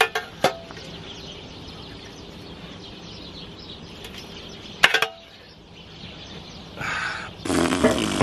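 Metal tongs clinking against a stainless steel dish three times, at the start, half a second in and about five seconds in, each with a short metallic ring over a low outdoor background. A louder burst of noise comes in near the end.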